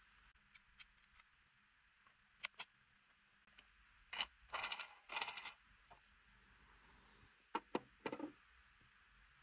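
3D-printed plastic engine parts clicking and scraping as they are handled and fitted together, the red gear being pushed onto the crankshaft. There are scattered light clicks, a longer run of scraping about four to five and a half seconds in, and a few more clicks near the end.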